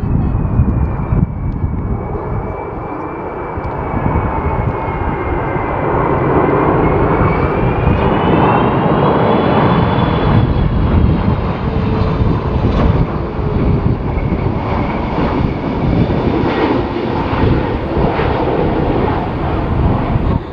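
Airbus A330 widebody's twin jet engines on final approach and landing: a steady jet rumble with a high whine that sinks in pitch, then rises again partway through before fading.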